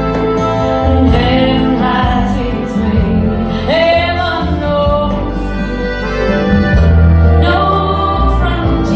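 A recorded song playing: held sung notes gliding in pitch over a steady bass and instrumental accompaniment.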